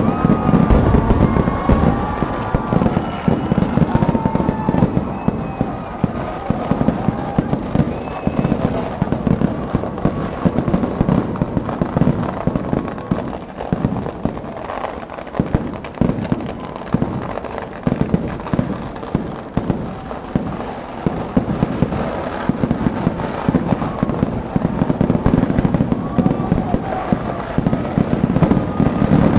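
Kerala temple fireworks (vedikattu): a dense barrage of firecrackers and shells going off in rapid, overlapping bursts. It eases a little midway, then builds again near the end.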